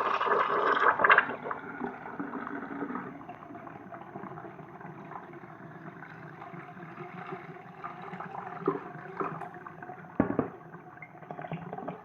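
Clay toilet flushing soapy water through its siphon jet: a loud rush of water that dies down after about three seconds into gurgling and trickling as the bowl drains and refills, the soap taken all the way down. A sharp knock sounds about ten seconds in.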